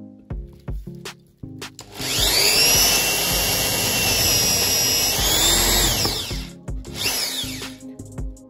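Cordless drill spinning up and boring into a wooden block for about four seconds, its motor whine steady under load and then winding down. A short second burst of the drill follows about a second later. Background music with a steady beat plays underneath.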